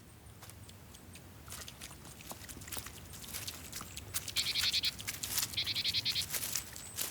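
Young hedgehog foraging and chewing: many small wet clicks and crunches, with two short rasping noises about four and a half and six seconds in.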